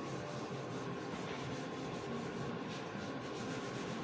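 Wood being rubbed and sanded by hand at the corner of a wooden stretcher frame: a steady, rough scraping.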